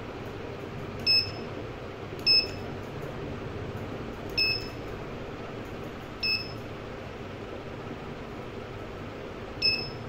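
PTS-3103C PTZ keyboard controller giving short, high key-press beeps, five in all at uneven intervals, as its keys are pressed to set the baud rate, over a steady low hum.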